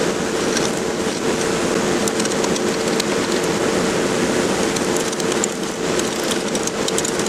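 Wood lathe running with a turning tool cutting into a spinning, out-of-round pecan blank: a steady hum under a continuous rough cutting noise, with scattered sharp ticks of the tool and flying chips.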